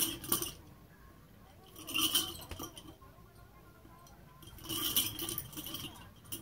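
Stainless steel nunchaku swung and caught in passes around the body, its chain and steel handles clinking and jangling in three short bursts about two seconds apart.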